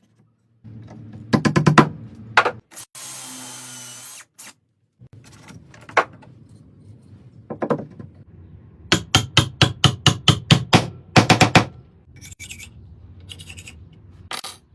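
Woodworking tool sounds: runs of quick, sharp knocks on wood, the longest a steady series of about six or seven strikes a second in the second half, with a short steady power-tool hum about three seconds in.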